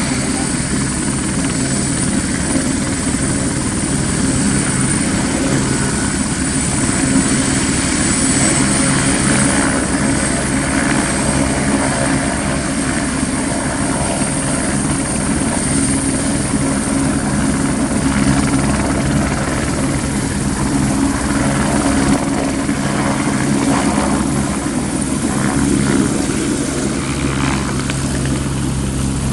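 Airbus AS350 B2 Esquilo helicopter running steadily on its single Turbomeca Arriel 1D1 turboshaft, a high whine over a low rotor and engine drone.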